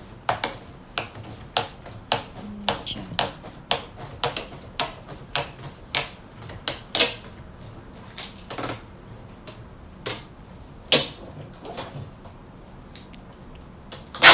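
Hands pressing and smoothing packing tape onto a cardboard box, making a steady run of taps about two a second that thins out after about seven seconds. A single loud sharp snap comes at the very end.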